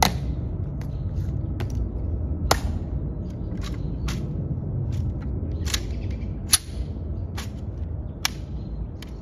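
Sharp, irregularly spaced clicks and snaps of a Tomb guard's M14 rifle being handled and inspected, together with the clicks of the guards' heels on the stone. The loudest come at the start and about two and a half and six and a half seconds in, over a low steady rumble.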